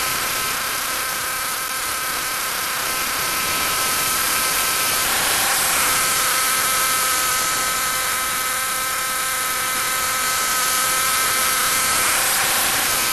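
Old garden tiller's small gasoline engine, retrofitted to run on propane fed through the air breather, running steadily under load as its tines dig into the soil.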